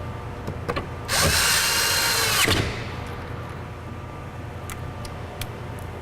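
Power drill running for about a second and a half, its motor whine dropping as it stops, most likely driving a fastener to secure the door handle. Light clicks of parts being handled before and after.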